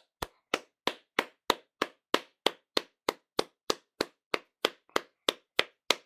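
Sharp, evenly spaced clicks, about three a second, each dying away quickly.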